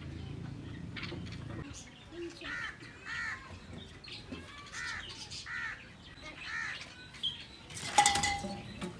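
Birds calling, one arched call repeated about five times. About eight seconds in, the stick-propped wicker basket trap drops over the feeding bulbuls with a sudden thump and a burst of wing-flapping, the loudest sound here.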